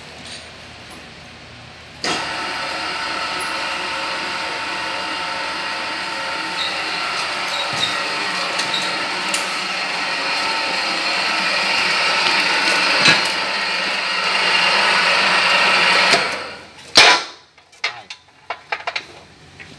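An electric power tool's motor starts suddenly, runs steadily with a whining, many-toned sound for about fourteen seconds, then is switched off. A loud sharp clack follows, then a few lighter knocks.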